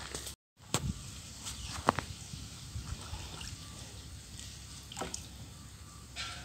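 A long wooden plank prodding and stirring shallow muddy pond water, with soft sloshing and dripping and a few short, sharper strokes.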